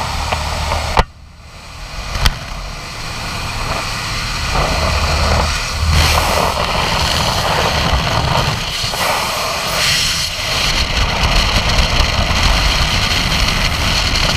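Light aircraft's engine and slipstream roaring through the open door, which drop away suddenly after a click about a second in as the skydiver leaves the plane. Then freefall wind rushing over the head-mounted camera's microphone, building over the next few seconds to a steady loud rush.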